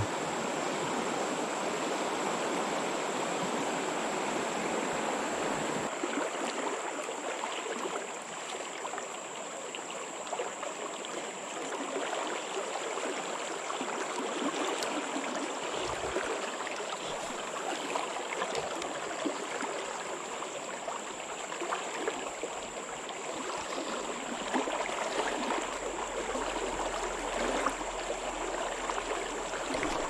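River current rushing steadily over a shallow, choppy riffle, an even flowing-water noise with no let-up.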